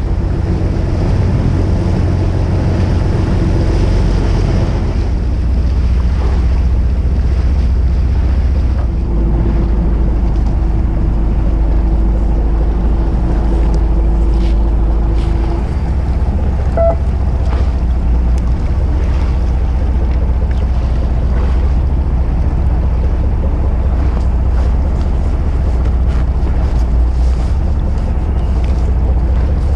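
Fishing boat's engine running steadily with a low drone, water rushing past the hull, and wind buffeting the microphone.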